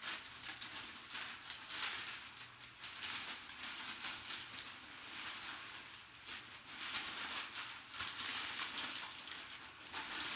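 Plastic and cardboard packaging crinkling and rustling in a continuous irregular crackle as collectibles are handled and unwrapped by hand.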